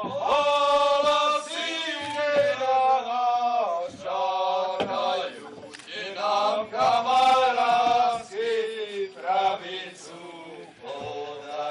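Several men singing a Goral folk song together, in loud phrases that hold a pitch and then slide between notes.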